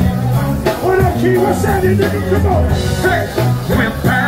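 Live band playing hip-hop music, with a steady low bass line and electric guitar under a voice singing.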